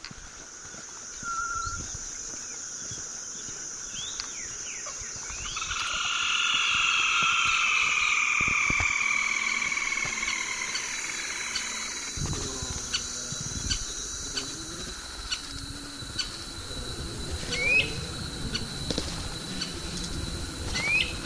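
Wild birds calling: several short chirps that sweep quickly up in pitch, and in the middle a longer, louder sound that slides down in pitch. A steady high hiss runs through the first two-thirds, and scattered ticks and a low rumble come in the second half.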